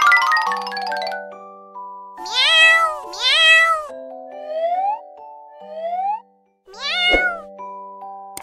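Cat meowing: two loud, long meows about two seconds in, fainter rising cries around five and six seconds, and another meow near seven seconds. These play over a light glockenspiel-like tune that opens with a chime.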